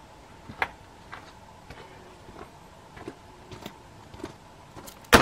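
A few faint scattered clicks, then near the end a single loud centerfire rifle shot followed by a short echo.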